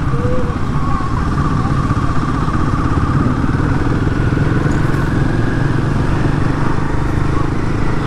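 Royal Enfield Himalayan 450's single-cylinder engine running steadily while riding, with road and wind noise.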